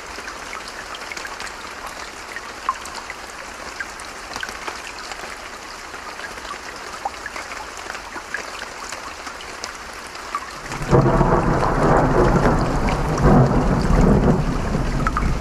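A stream running, with scattered small drips and ticks. About two-thirds of the way in, a roll of thunder breaks in suddenly as a loud low rumble and keeps rolling.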